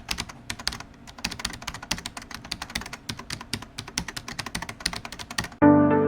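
Rapid, irregular key clicks like typing on a computer keyboard. Music starts abruptly about five and a half seconds in.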